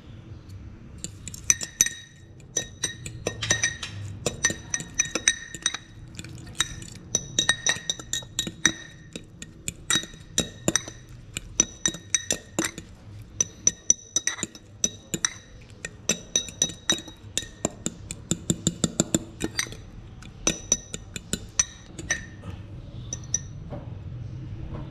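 Metal fork clinking rapidly against a small glass bowl while stirring a garlic and spice mixture, each tap leaving a short glassy ring. The clinks start about a second and a half in and thin out near the end.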